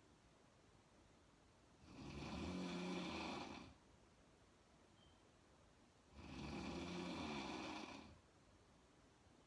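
A woman snoring: two long snores about four seconds apart, each lasting about two seconds, with a low buzzing tone, and quiet pauses between them.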